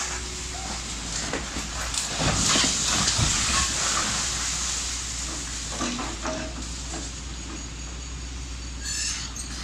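Excavator demolishing a concrete building: its diesel engine runs steadily underneath while masonry and rubble crumble and fall, loudest about two to four seconds in.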